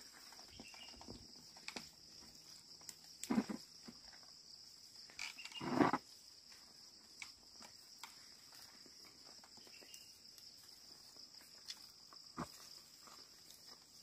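Steady high chirring of insects, with a few brief scuffs and knocks over it, the loudest lasting under a second about six seconds in.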